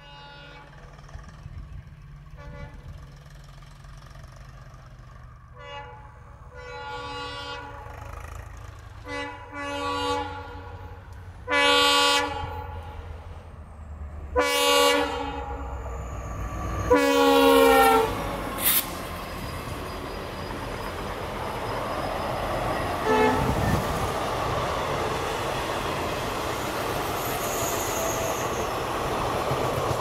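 Indian Railways train locomotive sounding its horn in a long series of blasts that grow louder as it approaches, over a low engine rumble. The train then passes close by, with a steady rolling noise of coach wheels on the rails.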